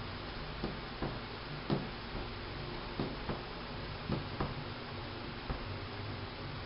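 Light, irregular taps and clicks of a wooden rolling pin knocking on the table as dough is rolled up around it by hand, over a steady background hiss.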